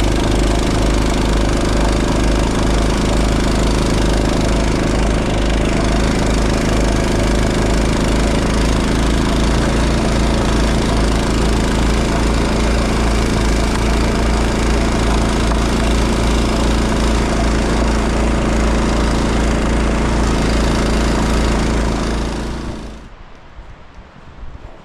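Honda snowblower engine running steadily under load, then stopping near the end.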